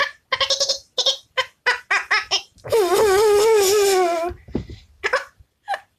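A child's voice making play dragon noises: a quick string of short laughing or chirping sounds, then one long, high, wavering screech about halfway in, then a few short squeaks.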